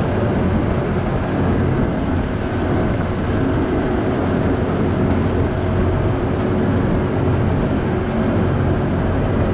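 A large farm tractor's diesel engine running steadily as it tows a loaded forage wagon, heard close from a camera mounted on the tractor, with a constant low hum and a few faint steady tones over it.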